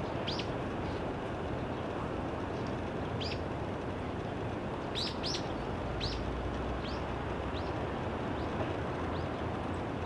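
Male Daurian redstart giving short, thin, high calls, about ten in all, spaced irregularly, with a quick run of three about five seconds in. A steady low background rumble runs underneath.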